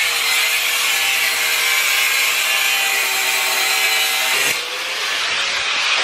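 Corded angle grinder running against steel, a steady high motor whine over harsh grinding noise. About four and a half seconds in, the sound dips and changes character, then the grinding goes on.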